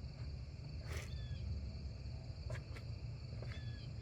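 1990 Chevy C1500 truck engine idling at a low, steady rumble, held alive with a little throttle because it stalls in gear. A bird chirps briefly several times over it.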